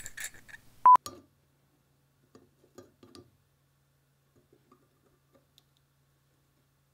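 A short, loud single-pitched electronic beep about a second in, followed by a few faint light ticks and taps over a faint low hum.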